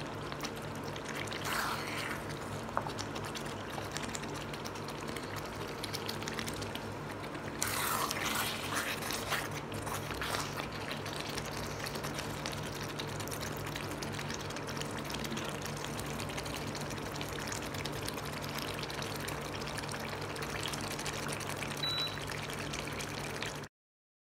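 Thick chicken tikka masala gravy bubbling as it simmers in a steel pan, stirred with a silicone spatula, with louder stretches about a second and a half in and again around eight to ten seconds in. A steady low hum runs underneath, and the sound cuts off just before the end.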